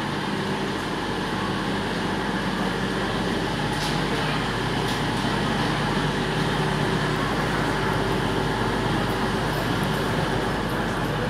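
CrossCountry Voyager diesel multiple unit with its underfloor diesel engines running steadily, a constant low hum.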